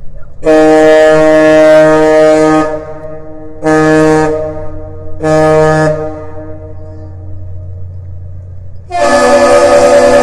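Freighter Manitoulin's ship horn sounding the captain's salute: one long blast followed by two short ones. Near the end a second horn of a different pitch starts a long blast, the Aerial Lift Bridge answering the salute.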